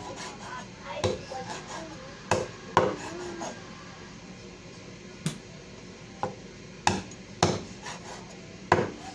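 Meat cleaver chopping the claws off raw chicken feet on a wooden cutting board: seven sharp chops at uneven intervals.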